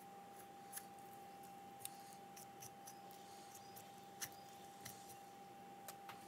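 Kitchen knife cutting up a raw whole chicken: scattered faint sharp clicks and snicks as the blade works through the carcass, over a steady faint hum.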